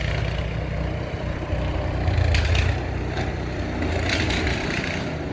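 A car approaching along a snow-covered street, a steady low engine and tyre rumble.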